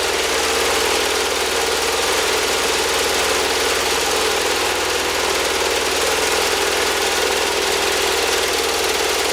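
Wood-Mizer portable band sawmill running, its engine going at a steady, unchanging speed.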